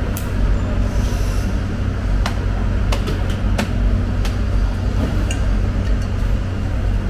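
Steady low mechanical drone of running machinery, with a few scattered sharp knocks and clatters.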